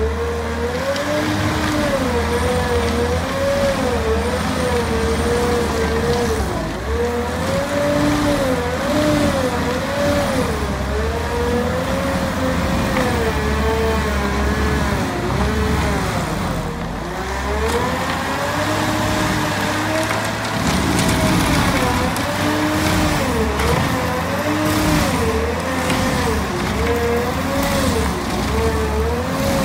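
Cat 308E2 CR excavator driving a hydraulic stump grinder that is cutting a tree stump down into wood chips. The sound is a whine that keeps rising and falling in pitch, over a low engine drone.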